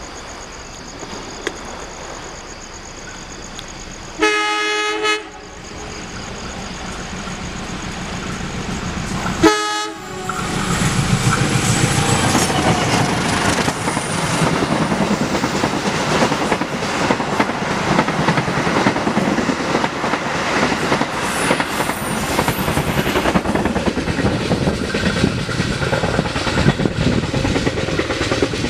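Diesel locomotive horn sounds twice, a blast of about a second about four seconds in and a shorter one near ten seconds, as the train approaches. Then the train passes close by, its wheels clattering on the rails under a steady rushing noise.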